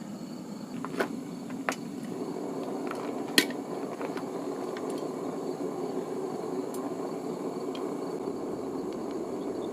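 Small smelting furnace running with a steady rushing noise while melting aluminium cans. A few sharp clicks about one, nearly two, and three and a half seconds in.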